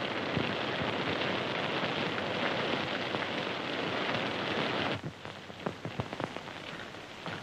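Heavy, steady rain from a storm. About five seconds in it drops abruptly to a quieter rain sound with a few sharp knocks.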